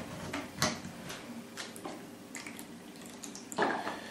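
Faint kitchen handling sounds: light clicks and soft, wet scraping of a utensil working a soft cream filling, with a louder scrape about three and a half seconds in.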